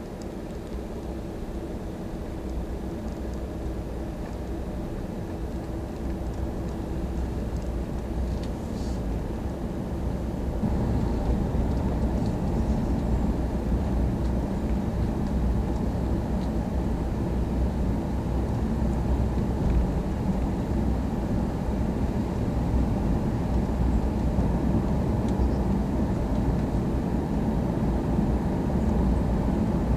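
A car driving along a road, heard from inside: a steady low rumble of engine and tyre noise that grows louder about ten seconds in.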